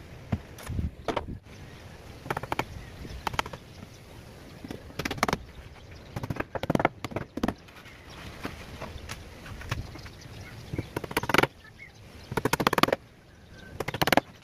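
Hammer driving nails into a plywood drawer bottom: short runs of quick blows with pauses between.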